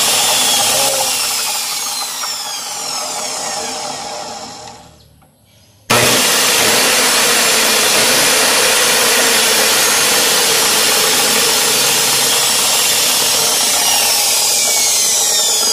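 A Maxwell 355 mm cut-off machine's brushed motor test-run on freshly fitted replacement carbon brushes. It runs with a whine, is switched off and winds down with the whine falling over about five seconds. About six seconds in it is switched on again and runs steadily.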